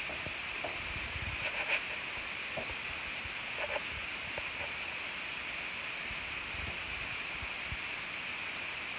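Steady hiss of room tone through a phone microphone, with a few faint soft thumps.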